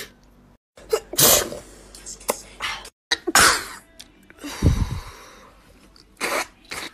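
A girl sneezing, about four sharp sneezes a second or two apart.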